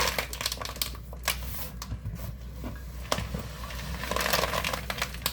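Kitchen handling sounds from working the cookie dough: scattered clicks and taps of utensils, with a longer scraping sound at the start and another about four seconds in.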